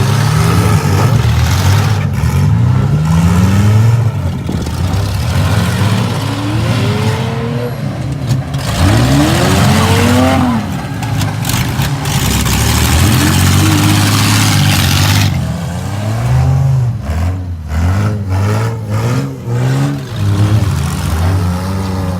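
Several minivan engines revving up and down at once in a demolition derby, with a run of sharp bangs from about 16 to 20 seconds in.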